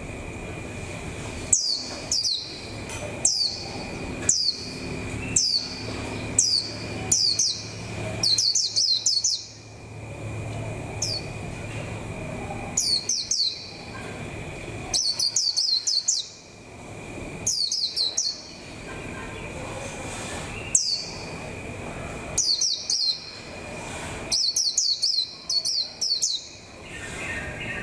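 Caged white-eye calling in short, high, downward-sliding chirps, some single and some in quick runs of three to six, repeated every second or two. This is a decoy (lure) white-eye starting to come into form for the season. A faint steady high tone runs underneath.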